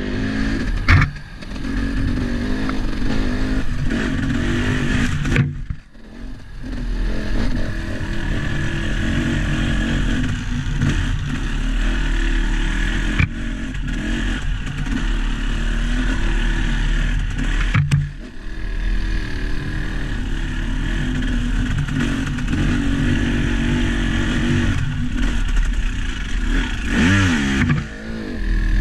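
A vehicle engine running continuously under way, its revs rising and falling. It eases off briefly about six seconds in and again near eighteen seconds, with a quick rev up near the end.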